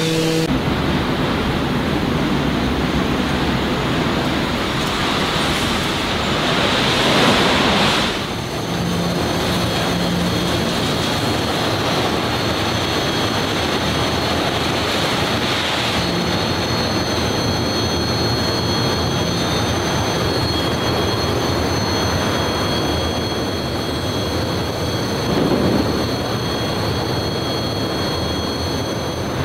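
Steel-mill furnace burning amid heavy industrial noise: a loud, steady rushing sound, with a thin high whine over it from about eight seconds in.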